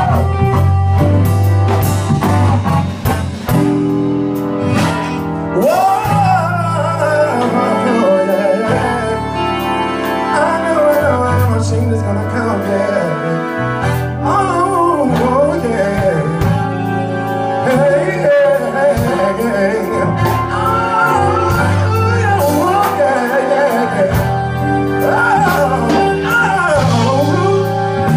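Live band playing a slow blues-soul song with a steady bass line and keyboard. A man starts singing about six seconds in.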